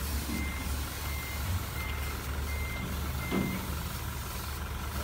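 Steady air hiss of a gravity-feed spray gun spraying primer, over a low steady hum. A reversing alarm beeps about five times, evenly spaced, and stops a little past halfway.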